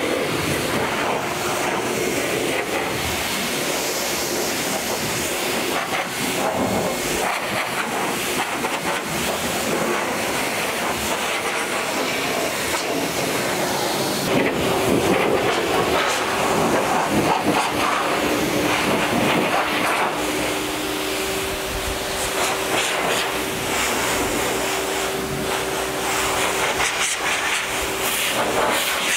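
Two-motor MetroVac car dryer running with both motors on: a loud, steady rush of air from its hose as it blows water off a car's paint. A steady motor hum comes through more clearly in the last third.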